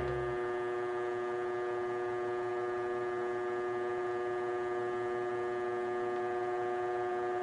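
DIY wind tunnel's fan running steadily: a constant hum with an unchanging tone.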